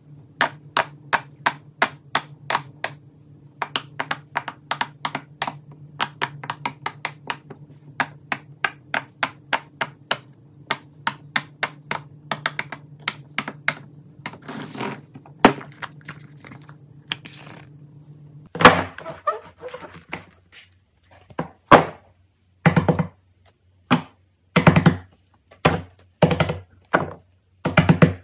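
Fidget toys being pressed and popped by hand, a string of quick sharp clicks about three to four a second over a low steady hum. About two-thirds of the way in the sound cuts to a quieter background, with the clicks coming in short bunches.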